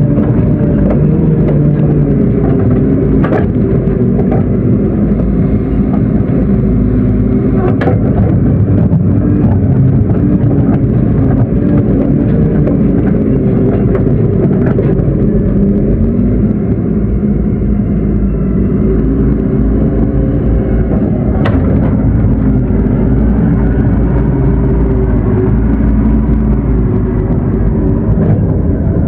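Excavator's diesel engine running steadily under work, with a few sharp knocks every several seconds.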